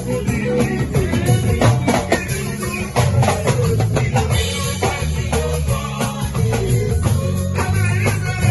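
Band music with a drum kit beating steadily over a prominent bass line, with guitar.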